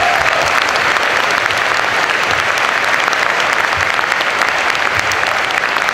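Audience applauding: a steady round of applause, many hands clapping together.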